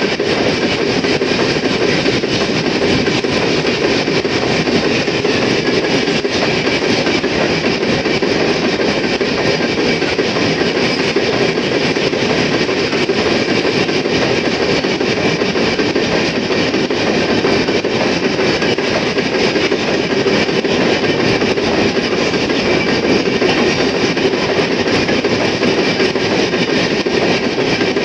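Empty iron-ore wagons of a long freight train rolling past close by at speed: a steady, loud rolling noise of steel wheels on rail that holds unbroken throughout.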